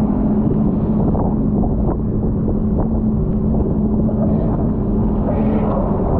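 Jet ski engine running steadily at speed, its tone holding level, under the rush of wind buffeting the microphone and water spray.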